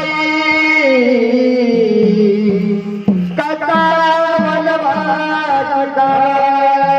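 Jagran-gondhal folk music: a long-held melody line that slides down in pitch and then holds again, over regular drum strokes.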